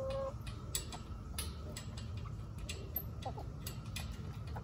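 Irregular light metallic clicks as a nut is worked off the bolt that locks a chicken-coop door latch. A chicken clucks briefly about three seconds in.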